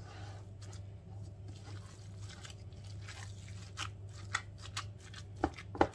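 Gloved hands kneading and squashing seasoned minced veal in a plastic bowl: soft, irregular sticky squelching as the spices and onion are worked into the meat, with a few sharp clicks in the last couple of seconds, the loudest near the end. A low steady hum runs underneath.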